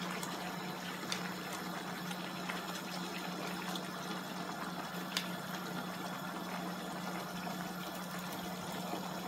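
Paella sauce simmering in a wide pan, a steady soft bubbling hiss over a low steady hum. A silicone spatula turns the shrimp in the sauce, with a couple of faint clicks, about a second in and again midway.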